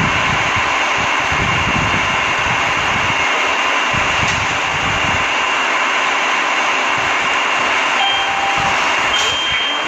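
Light-rail train running, a steady rush of noise with faint hums heard from inside the car. Near the end a high electronic beep sounds briefly, twice.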